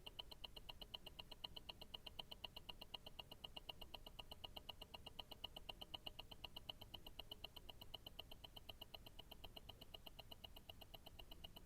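Invicta Grand Octane tourbillon watch movement ticking, heard close up through a stethoscope: a faint, rapid, perfectly even run of ticks, several a second, from the balance and escapement.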